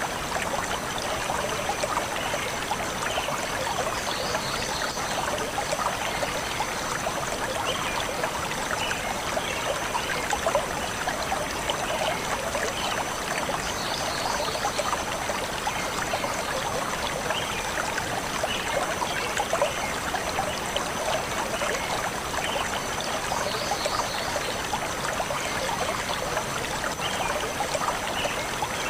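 Shallow forest stream flowing and trickling steadily over stones, with faint bird chirps now and then.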